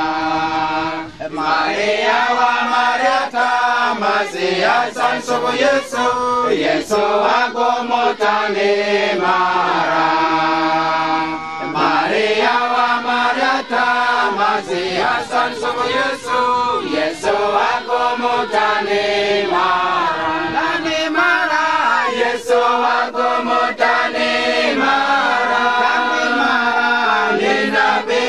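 Church congregation singing a hymn together without instruments, many voices at once, with a brief pause between lines about a second in and another near the middle.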